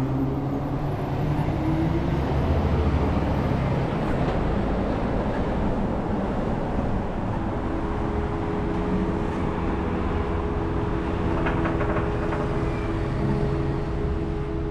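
Road traffic at a city intersection: cars driving past over a steady rumble of engine and tyre noise.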